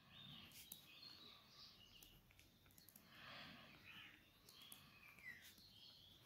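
Near silence, with the faint scratching of a pen writing on notebook paper in short strokes.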